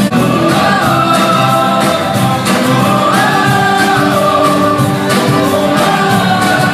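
Live band music with a singer: a sung melody over a steady beat.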